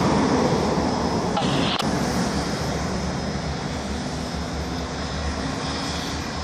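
Steady loud hiss of steam venting from Milwaukee Road No. 261, a 4-8-4 steam locomotive, over a low steady engine hum.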